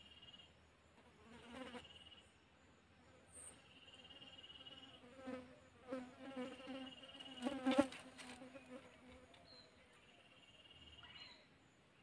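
Insects: a high trill repeats in runs of about a second, and a buzzing insect drones close by, its pitch wavering, from about a second and a half in until about eight seconds, loudest near the end of that stretch.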